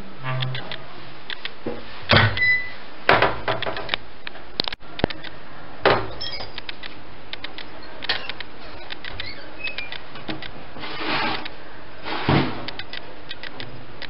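Metal pot and lid knocking and clanking as they are handled, about half a dozen sharp knocks spread through, over a steady hiss.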